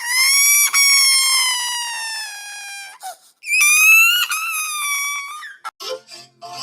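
Baby crying: two long, high-pitched wailing cries, the first slowly falling in pitch, the second starting higher after a short breath, then a few short broken sounds near the end.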